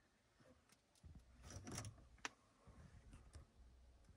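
Near silence with faint rustling and a single faint click about two seconds in.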